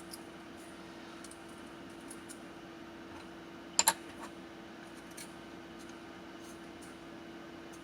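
Scattered light clicks and taps of small carbon-fibre frame parts and screws being handled, with one sharp, loud double click about halfway through, over a steady low hum.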